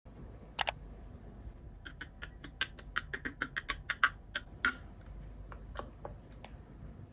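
Small sharp clicks: a double click about half a second in, then a fast, uneven run of clicks for nearly three seconds, then a few scattered ones, over a low steady hum.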